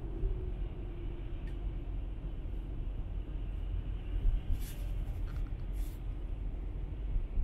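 Steady low rumble of a car's engine and tyres on a wet highway, heard from inside the cabin. Two short sharp clicks come at about four and a half and six seconds in.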